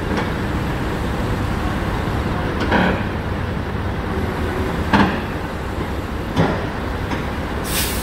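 Komatsu D85 bulldozer's diesel engine running steadily while the machine creeps on its steel tracks. Metal clanks from the tracks and the trailer deck come about three times, and a short hiss follows near the end.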